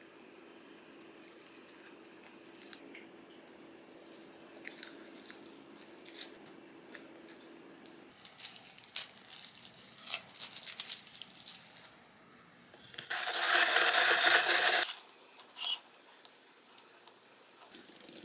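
Faint chewing at first. Then a straw's paper wrapper is torn off and crinkled, and the straw is pushed through the domed plastic lid of an iced coffee cup, the loudest sound, lasting about two seconds. A single click follows.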